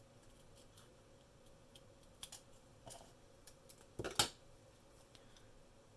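Scissors snipping through folded cardstock in a few short, separate cuts, the loudest a double snip about four seconds in.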